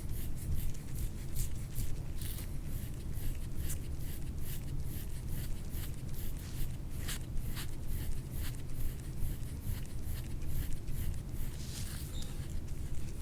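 Soft-tissue work on a patient's skin: short, irregular rubbing and scraping strokes, several a second, over a steady low hum.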